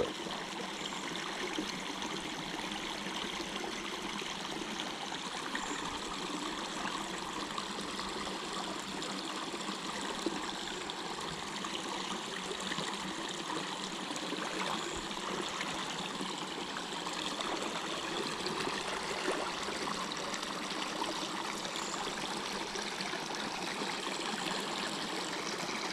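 Water of a small creek running steadily.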